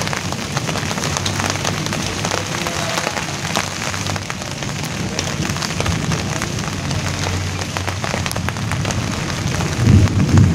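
Rain falling steadily on broad leaves, an even hiss dotted with many separate drop strikes. About ten seconds in, the sound swells louder and deeper.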